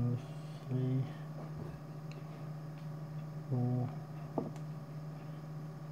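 A few short, flat-pitched spoken syllables, a man counting under his breath, over a steady low hum, with a sharp click about four and a half seconds in.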